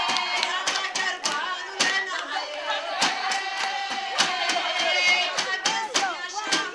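A crowd clapping in rhythm, about three claps a second, with voices singing over the clapping to accompany a group dance.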